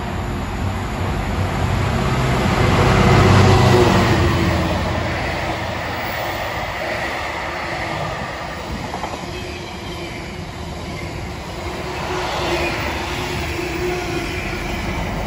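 A Class 66 diesel locomotive with a two-stroke V12 passes hauling a freight train, its engine loudest about three seconds in. The rumble and clatter of the wagons follow steadily, with a faint high wheel squeal near the end.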